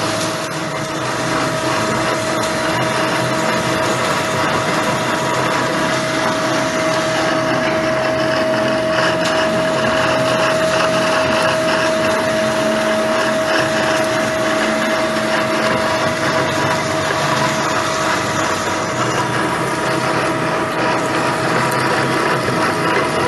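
Bomar STG 220 metal-cutting band saw running and sawing through a solid round steel bar. The motor and blade make a steady drone with one strong, even whine over a dense grinding noise.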